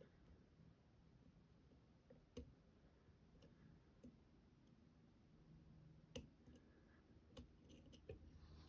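Faint, scattered small clicks, about seven spread unevenly, of a pick working the pins of a two-row, 13-pin Idaho tier-key lock.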